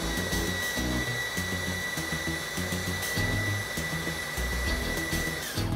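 KitchenAid 13-cup food processor's motor running on high speed with a steady high whine, its multi-purpose blade puréeing quartered tomatoes. About five and a half seconds in the motor is switched off and the whine falls away. Background music with a steady beat plays along.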